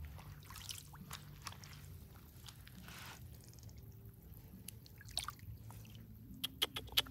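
Hands squelching and dabbling through wet mud and shallow puddle water, with small drips and splashes, and a few sharp clicks near the end that are the loudest sounds.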